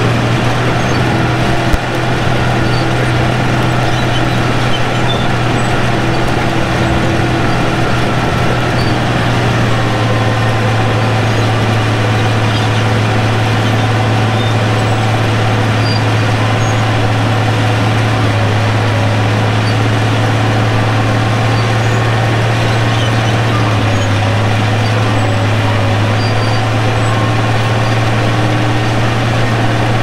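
Crawler bulldozer's diesel engine running steadily while dozing clay, heard from the operator's seat: a loud, low, continuous drone whose pitch shifts slightly a couple of times.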